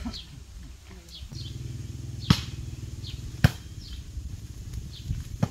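A volleyball being struck by players' hands: two sharp smacks about a second apart, and a fainter hit near the end. A low steady hum sets in about a second in, and faint high chirps sound throughout.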